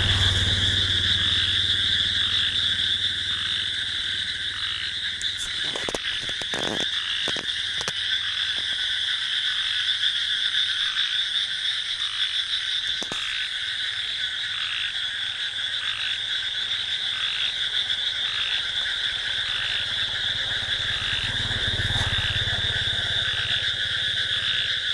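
Frogs and crickets calling together in a dense, steady night chorus, with one call pulsing at an even rhythm through it and a few brief clicks.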